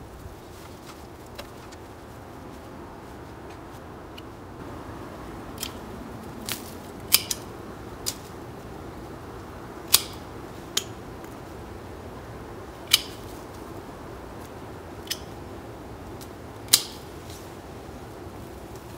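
Pruning shears snipping through the thin stems of a white Lady Banks rose: about nine sharp single cuts at uneven intervals, starting about five seconds in, over a steady background noise.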